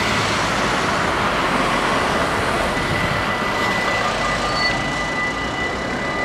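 Road traffic passing over a Dutch level crossing against a steady rushing noise, while the crossing's warning bells ring, growing clearer from about halfway through as the barriers begin to come down.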